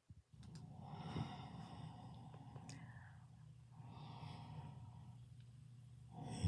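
A person snoring: long, slow, noisy breaths about three seconds each, two in a row, with a louder one starting near the end.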